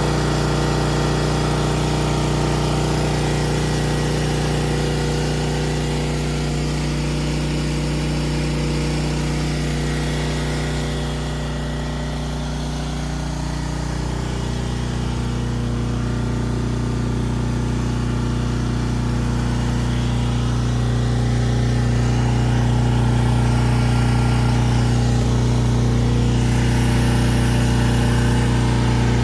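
An engine running steadily, with a deep even hum. Its tone shifts about 13 seconds in, and it grows somewhat louder from about 21 seconds.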